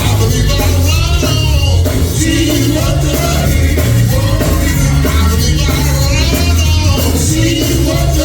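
Live church music: singing with a band carrying a strong, steady bass line.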